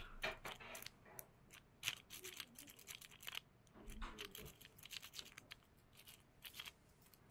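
Faint, irregular metallic scratching and clicking of a City rake being raked in and out of a Brucke padlock's keyway under very light tension, dragging across the pins.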